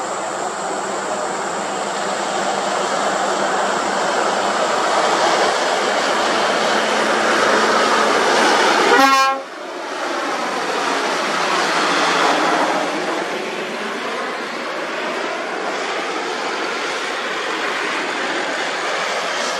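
Heavy trucks passing: the engine and tyre noise of a MAN TGS tractor unit hauling an excavator on a lowboy trailer, growing louder as it approaches. A short horn blast sounds about nine seconds in.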